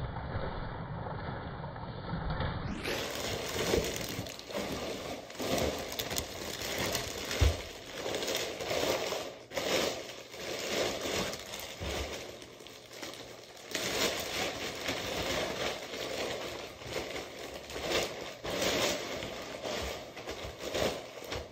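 Hands unpacking a delivery, with cardboard from the shipping box tearing and scraping, then a plastic bag crinkling as a hard plastic chest protector is pulled out of it. The rustling is continuous and broken by sharp rips and knocks.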